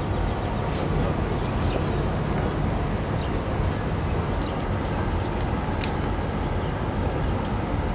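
Steady low rumble of the lake freighter Manitowoc under way, holding even throughout, with a few short high chirps over it.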